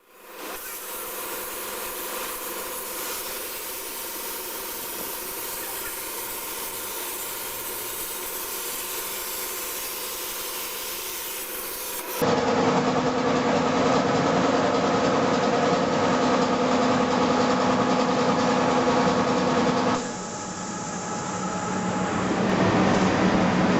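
CNC plasma cutter cutting stainless-steel sheet: the torch gives a steady hiss with a steady whine over it. The sound changes abruptly and grows louder about twelve seconds in, then shifts again near twenty seconds.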